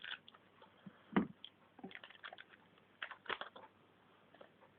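Scattered light clicks and rustles of a trading-card booster pack being handled and opened with scissors, with one dull knock about a second in.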